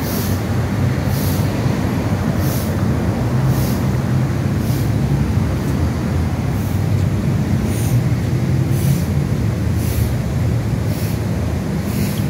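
Steady low rumble of outdoor background noise, with a soft high swish repeating about once a second. It cuts off suddenly near the end.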